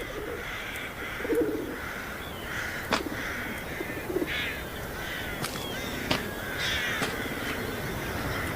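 Crows cawing again and again, with a few other short bird calls and occasional sharp clicks among them.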